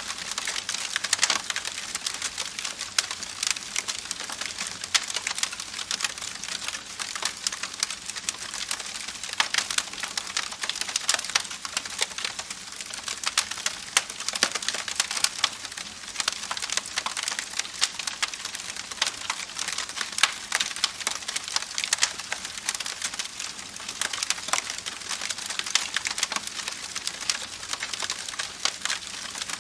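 Campfire burning, with dense, irregular crackles and pops of burning wood over a steady hiss.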